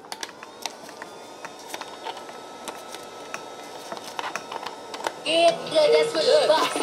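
Old 4-watt radio running off a power bank's AC outlet: a faint hiss and steady tones with scattered clicks from handling the plug and unit, then about five seconds in a song with singing comes loudly through the radio's speaker.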